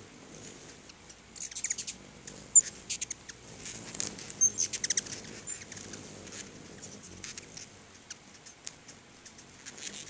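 Ruby-throated hummingbirds chipping and chattering around the feeders: quick bursts of rapid, sharp, high-pitched chips, the busiest about a second and a half in and again around four to five seconds in, with scattered single chips between.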